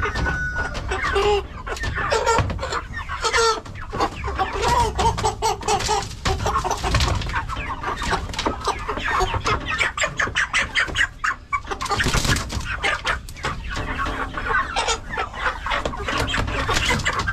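A trailer-load of broiler chickens clucking and squawking without a break, with frequent short knocks and flapping as birds are handled into plastic transport crates.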